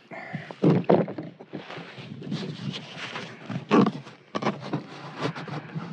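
Cardboard and a plastic telescope tube being handled close to the microphone: rustling and scraping with a few dull knocks, the loudest about a second in and again near four seconds.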